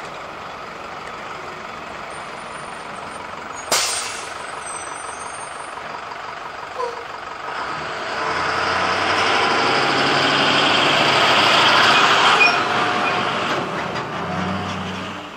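A heavy vehicle passes: its engine and rolling noise build from about eight seconds in, peak, then fade near the end. A sharp click comes about four seconds in.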